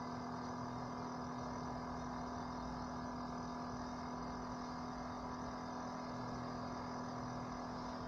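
Portable espresso machine's small electric pump running with a steady low hum as it pushes hot water through the capsule, mid-brew.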